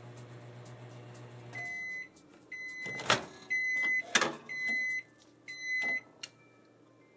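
Microwave oven running with a steady hum that stops about a second and a half in at the end of its timed cycle. It then beeps five times, about once a second. A few sharp clicks and knocks come among the beeps, the loudest sounds here.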